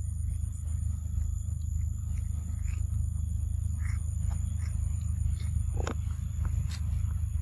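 Young macaque chewing mango, with faint scattered wet clicks and smacks, the clearest about six seconds in. Under it runs a steady low rumble and a steady high-pitched whine.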